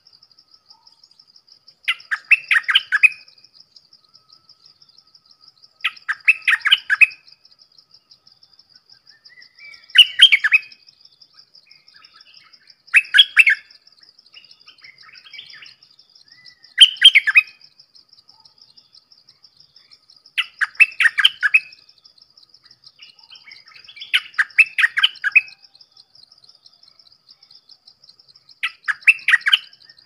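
Bulbul (the Thai 'dok taeng' bird) singing short loud song phrases, about a second each, eight in all, every three to four seconds, over a steady high-pitched trill.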